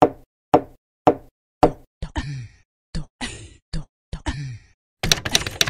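Intro sound effect: a run of sharp knocks about half a second apart, then a few short pitched blips.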